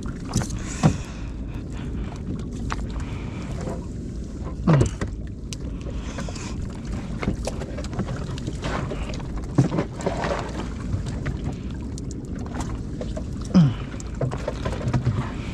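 Wet fishing net being hauled in by hand over the side of a small boat, with scattered clicks, knocks and a few brief squeaks over a steady low rumble.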